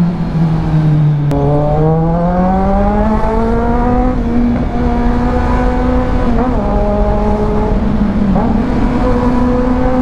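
Kawasaki Z900's 948 cc inline-four engine through an aftermarket Orion exhaust, heard from on the bike while riding: the engine note drops in the first second, then rises steadily for about three seconds as it accelerates, and holds at a steady pitch.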